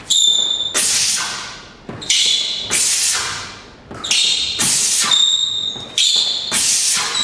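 A boxer's sharp, hissing exhales, one with each punch of a repeated combination, coming in quick pairs about every second and a half and echoing in a large room.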